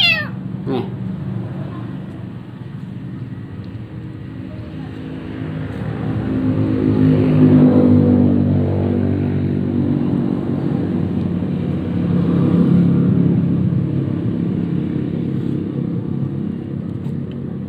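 Engine of a passing motor vehicle, a steady low hum that swells louder twice, around eight and thirteen seconds in. A kitten mews once at the very start.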